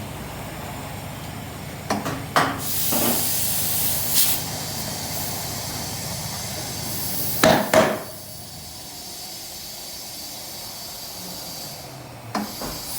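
Compressed air hissing through an air chuck as a tire is inflated, broken by several sharp knocks, the loudest a double knock about halfway through.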